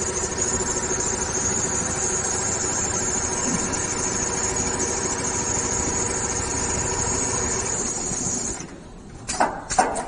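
Richpeace double-head automatic industrial sewing machine running steadily while stitching, a constant hum with a high whine. It stops about eight and a half seconds in, followed by a few sharp clacks.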